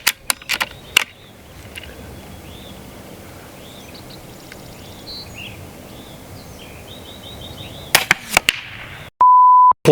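Sharp mechanical clicks and loud cracks from a .22 Benjamin Marauder PCP air pistol being handled and fired: a few clicks in the first second, then several cracks about eight seconds in. Between them there is a low steady outdoor background with faint bird chirps. Just before the end comes a loud, steady censor bleep tone.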